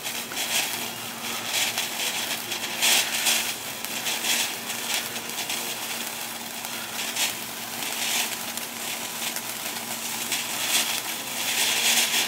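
Consumer ground fountain firework spraying sparks: a crackling hiss that swells in brief surges every second or so, and stops right at the end as the fountain burns out.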